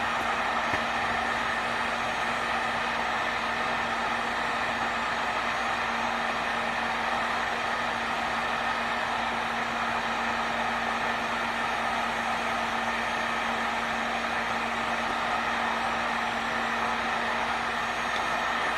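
Electric heat gun running steadily: an even blowing whoosh from its fan with a steady low hum underneath.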